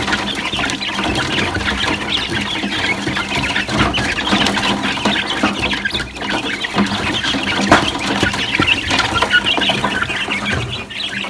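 A flock of young chickens clucking and cheeping continuously, many calls overlapping.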